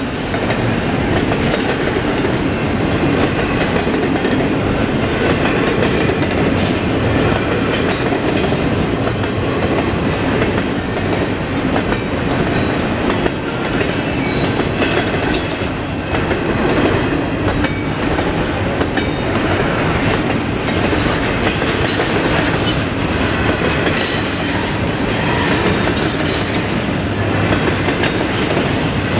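Double-stack intermodal container well cars of a freight train rolling past: a steady rumble of steel wheels on the rails, with irregular clicks and clanks as the wheels cross rail joints.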